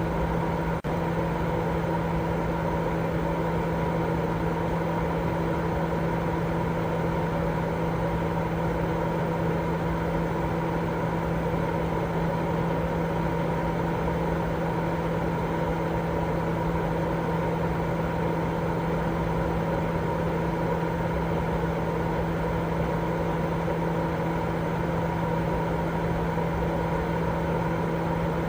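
Continuous white noise made for baby sleep, steady and unchanging, with a low machine-like hum running through it. There is a very brief dropout just under a second in.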